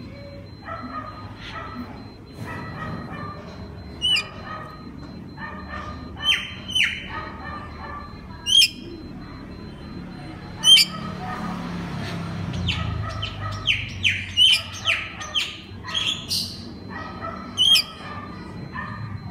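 Oriental magpie-robin (kacer) singing: loud, sharp whistled notes every few seconds over a chatter of shorter repeated notes, with a quick run of sweeping notes about two thirds of the way through.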